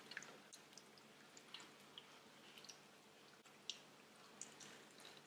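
Faint, scattered wet clicks and smacks of rubber-gloved hands handling a thawed octopus, turning its body inside out.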